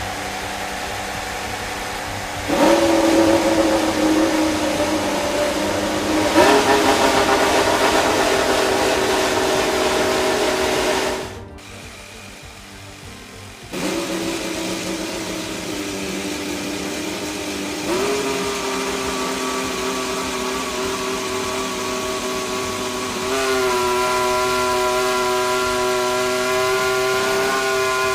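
Mercedes Formula 1 turbocharged V6 hybrid power unit running on a first fire-up, holding a steady high idle with a whining tone that steps up in pitch several times. It drops away briefly about halfway through, then runs again and steps up twice more.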